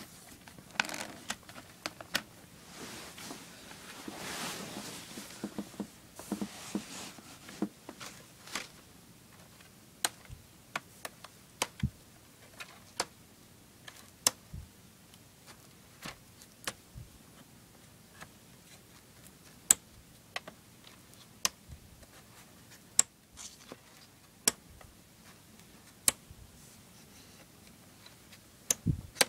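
Plastic CED videodisc caddies knocking and clacking against one another as they are flipped through one at a time in a stack: first some sliding and rustling, then sharp, irregular clicks.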